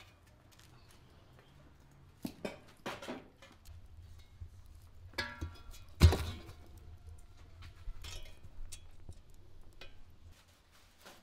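A poker working the embers in a clay tandoor, knocking against the iron grate. There are several knocks, some with a short metallic ring, and the loudest thump comes about six seconds in, over a low steady rumble.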